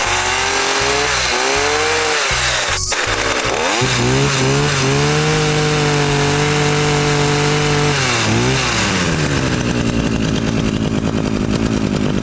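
1996 McCulloch Power Mac 32 cc two-stroke chainsaw running just after a cold start, off choke. It is revved up and down a few times, held at high revs for about four seconds, then drops back to a lower, steady running speed.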